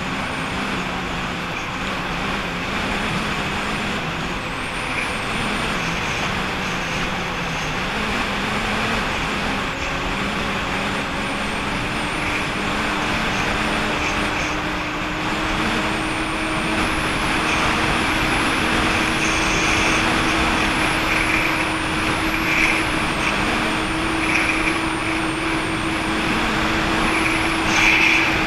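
Jet ski engine running at a steady cruise, with water rushing past; the engine note steps up slightly and holds about a third of the way in.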